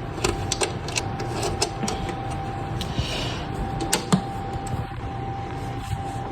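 Scattered clicks of computer keys being pressed, a few each second, over a steady hum with a faint steady whine.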